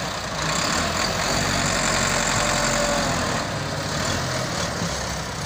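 Farm tractor diesel engine running steadily while the tractor pulls a tipping trolley through soft earth.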